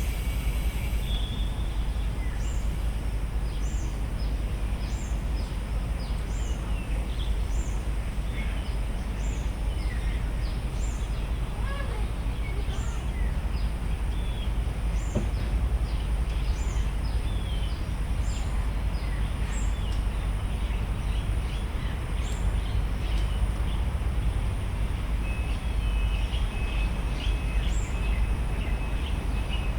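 Park ambience of many birds chirping, one giving a short high note about once a second, over a steady low rumble.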